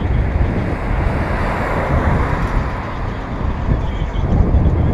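Wind buffeting a GoPro's microphone on a moving bicycle, a loud fluttering rumble. A rushing hiss swells and fades between about one and three seconds in.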